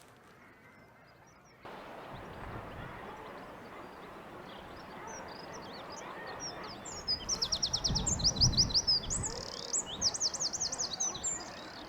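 A small songbird singing a fast, high trill of rapidly repeated rising notes, after some scattered chirps. It sings over steady outdoor background noise that comes in suddenly about two seconds in, with a brief low rumble midway.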